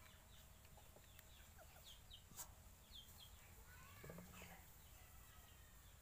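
Near silence with faint, scattered bird chirps, one soft click a little over two seconds in, and a brief low call about four seconds in.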